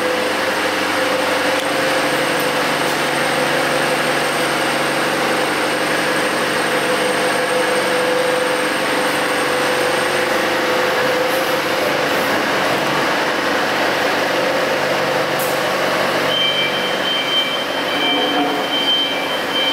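Large diesel generator set running steadily at constant speed, a dense engine drone with several steady tones. Near the end a high, steady whine joins in.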